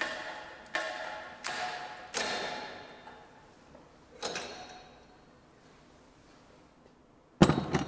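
Sharp metallic clanks, each ringing briefly: four in quick succession about 0.7 s apart, then one more about four seconds in. The hydraulic cylinder and puller are pressing a wheel hub out of a first-generation wheel bearing, wrecking the bearing as the hub comes free.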